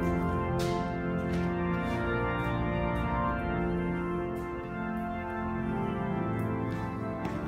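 Organ music: sustained chords of several held notes, changing every second or two, with a few faint clicks over them.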